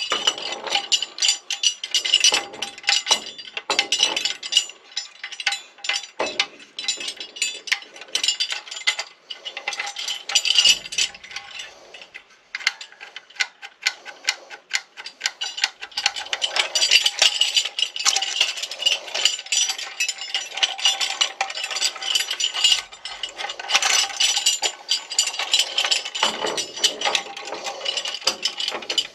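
Lever-operated hand winch with a double ratchet wheel being worked: rapid metallic clicking of the pawls over the ratchet teeth, with rattling of its metal parts, easing off briefly a few times.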